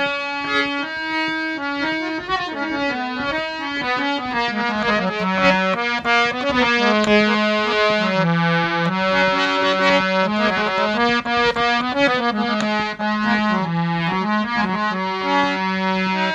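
Harmonium playing a solo melody: sustained reedy notes that step up and down from one held pitch to the next.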